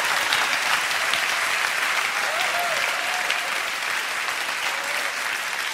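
Large audience applauding, a dense steady clapping, with a faint single voice rising above it briefly about two and a half seconds in.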